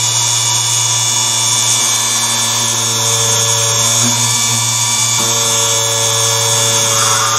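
Small DC motor of a home-built drill press running at high speed, about 10,000 RPM on 8.5 volts, a steady whine and hum as a 2 mm bit drills into perspex. The tone shifts slightly about five seconds in.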